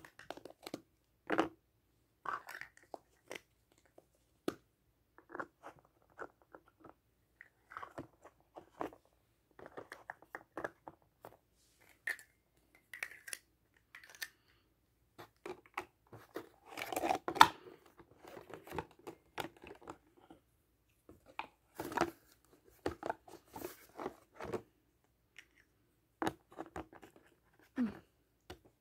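Toy ice cream scoops, cones and cups being handled and set into a cardboard display box: irregular small taps, knocks and rustles, with a louder stretch of rustling about 17 seconds in.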